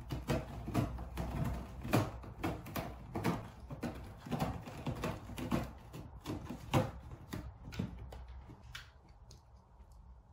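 A cat raking its claws across a cardboard scratcher in quick scratching strokes, about two or three a second, stopping about eight seconds in.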